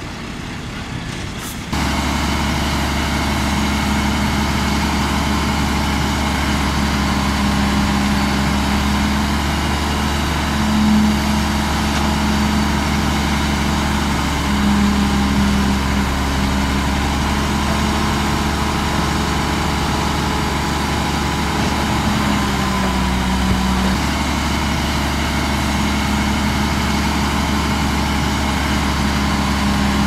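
Heavy diesel engine of earthmoving machinery running steadily, stepping abruptly louder just under two seconds in. Its note sags briefly about 23 seconds in, as under load, then recovers.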